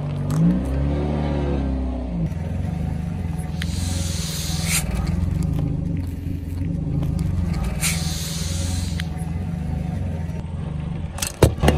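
A car's engine running low as the car rolls slowly on asphalt, with a hiss swelling up twice. Near the end comes a quick burst of sharp cracks as the tyre reaches a rubber Halloween hand.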